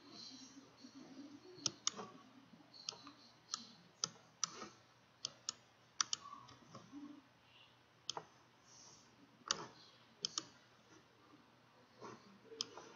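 Computer mouse clicking: faint, sharp single clicks at irregular intervals, with a few quick pairs like double-clicks.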